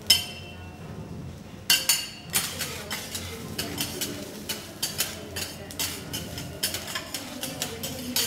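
Two steel spatulas clattering and scraping on a flat-top steel griddle as vegetables are worked on it. There is one ringing clink just after the start, then from about two seconds in a quick, uneven run of metal strikes, several a second.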